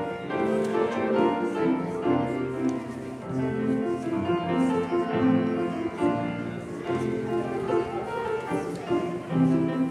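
Slow instrumental keyboard music with held notes.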